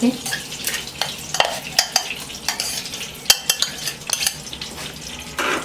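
A spoon stirring, scraping and knocking irregularly in a pan of hot ghee, with the ghee sizzling.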